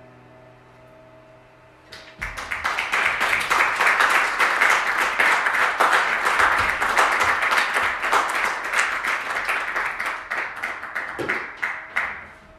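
Audience applauding, breaking out about two seconds in as a last guitar chord rings away, and dying down near the end.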